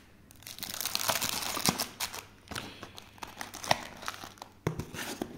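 Plastic wrapping around a pack of firecrackers crinkling and rustling as it is handled, with a few sharp clicks and light knocks.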